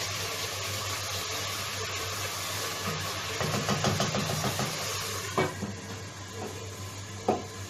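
Meat sauce frying in an uncovered pot, a steady sizzle, stirred with quick scraping strokes a few seconds in. The lid clinks down on the pot about five seconds in and the sizzle quiets, with another clink near the end; a low steady hum runs underneath.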